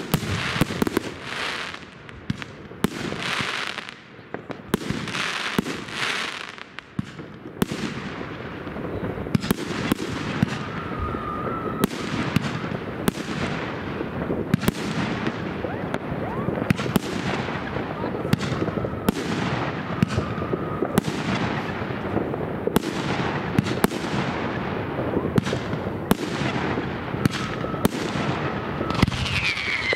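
Fireworks going off. For the first several seconds there are bursts of crackling about once a second; then comes a rapid, dense run of sharp bangs, several a second, over a steady crackle, with a short falling whistle near the end.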